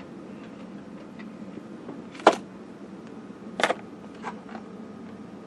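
A few sharp plastic clicks and small rattles, the loudest about two seconds in and another cluster a second later, as a clear plastic parts box holding rubber washers and grommets is handled, over a faint steady hum.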